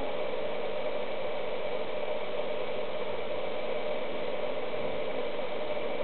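A steady, unchanging hiss-like noise with a low hum in it. It sets in just as a plucked-string music passage stops.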